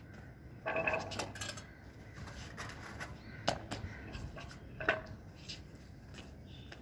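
A few faint, sharp knocks or clicks over a quiet background, the clearest about three and a half and five seconds in, with a faint voice briefly about a second in.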